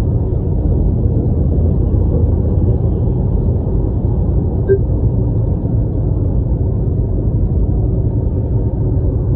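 Steady low rumble of tyre and engine noise inside a car's cabin while cruising at highway speed.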